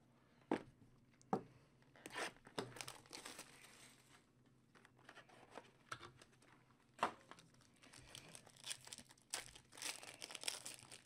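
Plastic wrapping and foil card packs crinkling and tearing as a box of baseball trading cards is opened, with scattered small clicks and taps of card and cardboard.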